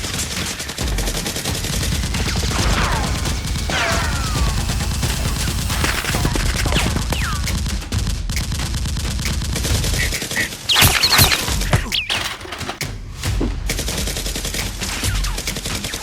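Sustained rapid gunfire, dense automatic bursts that run without a break, with a few louder, sharper shots about two thirds of the way in.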